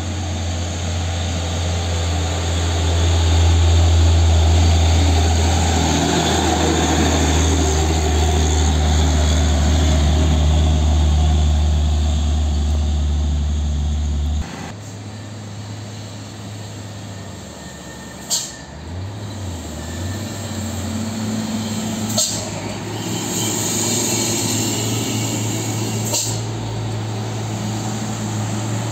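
Hino Ranger 500 truck's diesel engine pulling hard up a steep incline: a loud, steady low drone that swells as the truck draws near and passes. About halfway it cuts off suddenly to a quieter truck engine running on, with three short sharp sounds spaced a few seconds apart.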